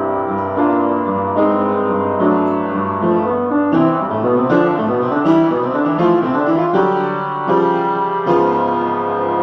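Solo piano playing a classical piece, notes and chords struck in quick succession.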